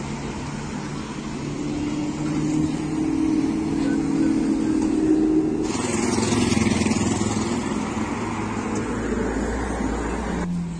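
Cars and a motorcycle driving past on a city street, engines running over steady traffic noise, with the sound changing abruptly twice.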